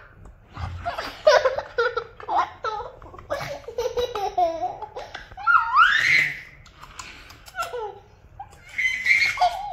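A toddler laughing and giggling in short bursts as a man nuzzles her neck, with a long high-pitched squeal of laughter about six seconds in.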